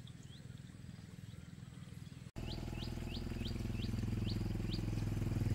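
A motorbike engine running low and steady, growing louder as it approaches, under a bird's short rising chirp repeated about six times. The sound jumps up in level at a cut about two seconds in.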